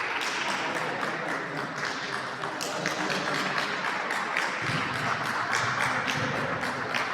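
Spectators clapping and shouting together: many quick, irregular hand claps over a haze of voices.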